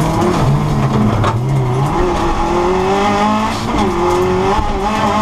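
Subaru Impreza WRX STI's turbocharged flat-four engine under hard acceleration on a hill climb, the revs climbing and dropping again several times as it shifts gears.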